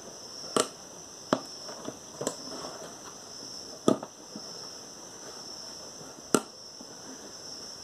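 Sharp knocks and clicks, five in all at uneven spacing, from the spin dryer's metal motor base being handled and shifted inside its plastic tub while its rubber mounts are fitted.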